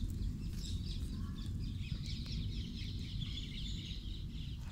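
Faint rustling and scratching in dry leaf litter close to the microphone, over a steady low rumble.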